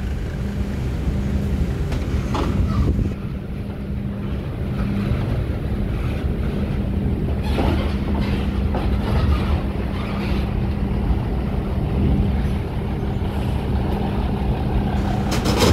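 Diesel engine of a Hino coach bus running as the bus drives slowly forward onto a ferry ramp, a steady low rumble with a held hum, broken by a few short knocks.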